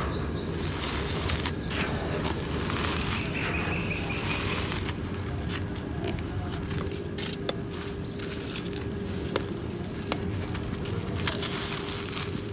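Dry, crumbly cement chunks handled by hand: gritty crackling with scattered small clicks as pieces break and grit falls.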